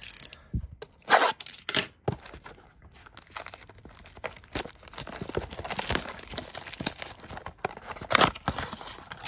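A cardboard trading-card blaster box being torn open and its packs handled. Tearing and crinkling, with loud rips about a second in and again near the end.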